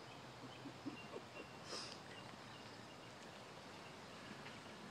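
Quiet outdoor ambience with a few soft crunches on wood-chip mulch in the first second and a half, then a brief rustle about two seconds in; faint short chirps sound here and there in the background.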